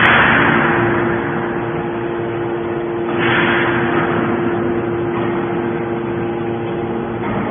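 Can baler machine running: a steady motor hum with two surges of hiss, one at the start and another about three seconds in.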